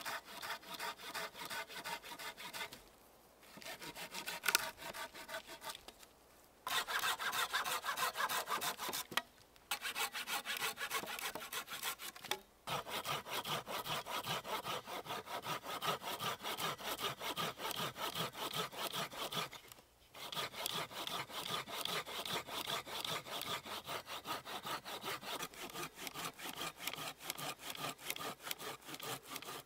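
Hand saw cutting through wood in rapid, even back-and-forth strokes, stopping briefly several times and starting again.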